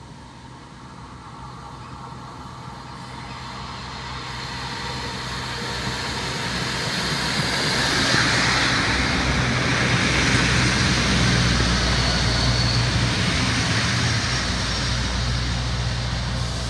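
ALn 668 diesel railcar pulling into a station, its rumble growing louder over the first half as it draws near. It then passes close by, with the diesel engine running steadily.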